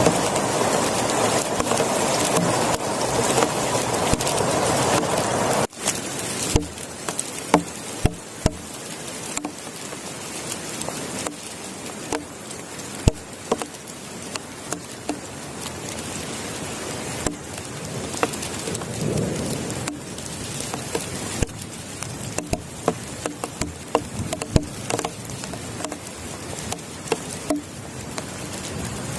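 Steady heavy rain that cuts off abruptly about six seconds in. It gives way to quieter rain in which individual large drops tap sharply on a surface close by, and there is a brief low rumble about two-thirds of the way through.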